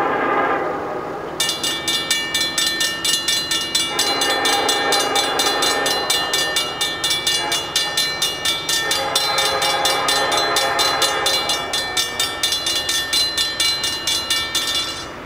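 Grade-crossing warning bell ringing rapidly, about four strokes a second, starting about a second and a half in and stopping just before the end, as the crossing activates and the gates lower. Under it, the air horn of the approaching Norfolk Southern locomotive sounds long blasts for the crossing, one fading out just after the start, another about four seconds in and another about nine seconds in.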